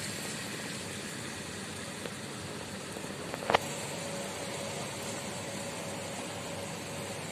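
Steady hiss of rain with city traffic noise. A single sharp click sounds a little over halfway through, and after it a faint steady hum joins in.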